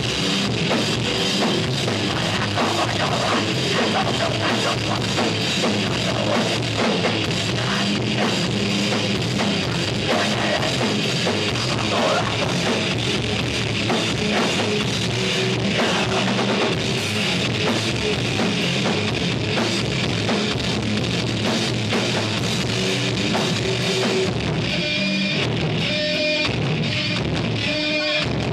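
Live rock band playing loud: drum kit, distorted electric guitars and bass. Near the end the playing turns into short stop-start hits.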